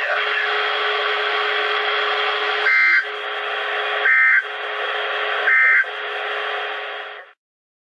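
EAS Required Weekly Test received over a radio scanner: steady static hiss, broken by three short, loud two-tone data bursts about a second and a half apart, the SAME end-of-message code that closes the test. The signal then cuts off suddenly about a second before the end.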